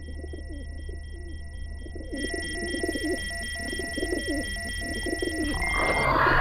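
Pigeon cooing over and over, laid over steady high electronic tones and a faint pulsing beep. Near the end a burst of noise and new electronic tones come in.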